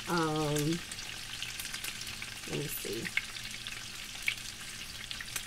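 Beef short ribs browning in oil in a skillet, sizzling steadily with many small crackles and pops of spattering fat. A brief vocal hum is heard at the very start.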